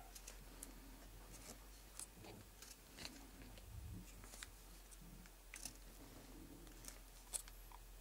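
Small knife cutting and scraping the bark of a green willow stick being carved into a whistle: faint, irregular snicks and clicks of the blade, with a sharper click near the end.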